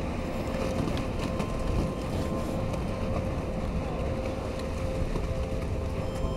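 Erupting volcanic spatter cone: a steady deep rumbling roar as lava fountains from the vent, with a few sharp crackles of flying spatter and wind on the microphone.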